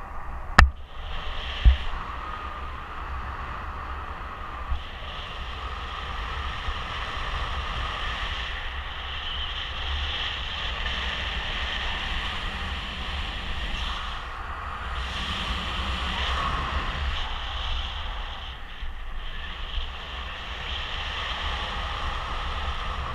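Steady rush of wind over the microphone of a camera on a paraglider in flight, with a low buffeting rumble. Two sharp knocks in the first two seconds.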